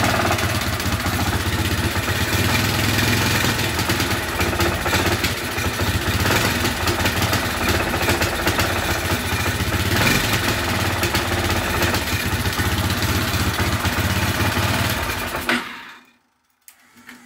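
Yamaha Majesty 250 scooter's single-cylinder four-stroke engine running steadily with its bodywork off, then shutting off about fifteen seconds in, leaving near silence.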